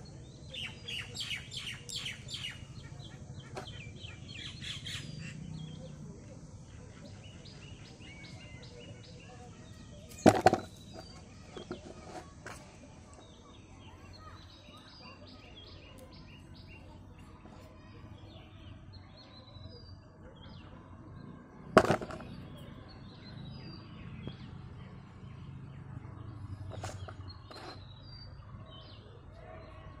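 Small birds chirping and twittering throughout, busiest in the first few seconds. Over them come a few sharp clicks from a hand-held wire stripper being worked, the two loudest about ten and twenty-two seconds in.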